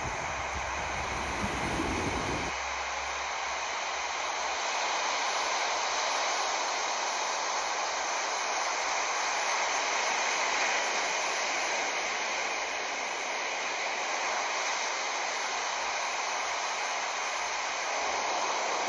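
Steady rushing water, an even hiss without breaks, with a low rumble under it that drops away about two seconds in.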